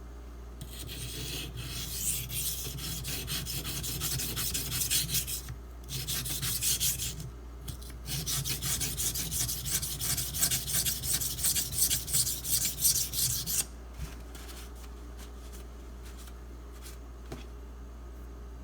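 Spyderco Delica's SG2 steel blade stroked back and forth on a Shapton Pro 320 grit waterstone: rapid gritty scraping in three spells of strokes, stopping about fourteen seconds in. This is coarse-grit grinding to remove earlier scratches from the edge.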